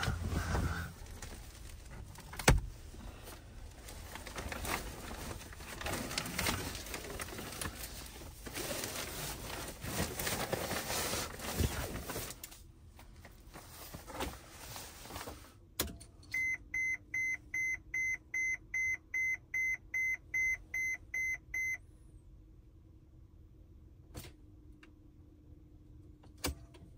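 Mercedes Sprinter van's dashboard warning chime beeping rapidly, about four beeps a second for some five seconds, over a low steady hum, as the diesel van fails to start in deep cold. Before it, about twelve seconds of uneven rushing noise with knocks, and clicks here and there.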